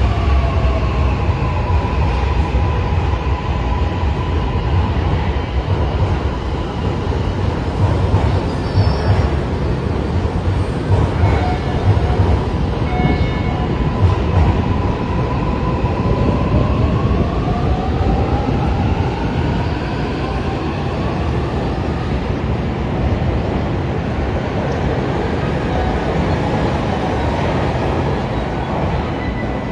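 Electric commuter train running, with a steady low rumble from the running gear and the whine of its traction motors. The whine falls in pitch over the first few seconds as the train slows, holds steady, then rises again from about halfway through as it picks up speed. A few short high squeaks come near the middle.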